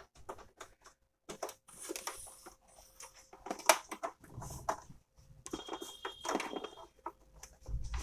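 Fingers fumbling a USB cable's plug against the plastic back of a laser printer while fitting it into the printer's port: irregular scrapes, rustles and small clicks.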